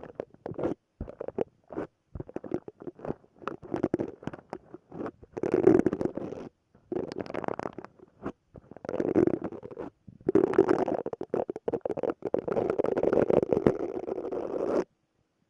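Silicone brush scrubbing in quick short strokes, then in longer continuous bursts of rubbing from about five seconds in. It stops abruptly near the end.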